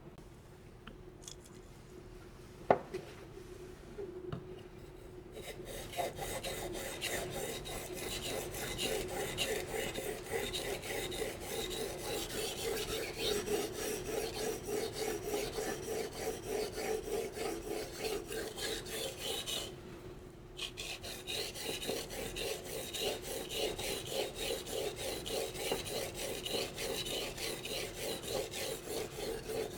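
Santoku knife edge being stroked back and forth across a wet Shapton Pro 1000-grit whetstone in a sharpening guide, a rhythmic rasping scrape at about three strokes a second. There is one sharp knock about two and a half seconds in; the strokes start around six seconds in and stop briefly near twenty seconds before going on.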